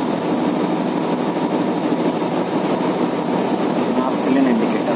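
Steady, loud drone of a ship's machinery running, heard inside a compartment on board.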